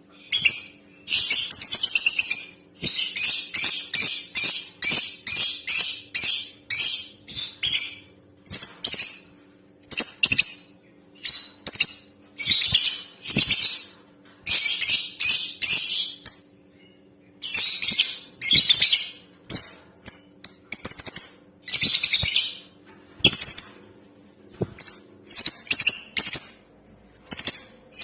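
Lovebirds calling in rapid runs of shrill, high-pitched chirps, each run lasting from a fraction of a second to about two seconds, with short pauses between.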